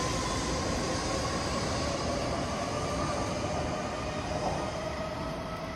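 Shinkansen bullet train running on the rails: a steady rushing rumble with faint steady whining tones over it, slowly getting quieter.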